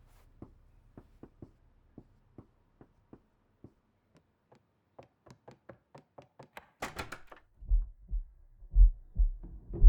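Scattered sharp knocks, sparse at first and coming faster about five seconds in, then a brief hissing burst near the seven-second mark. After it, deep thumps in pairs about once a second, like a heartbeat.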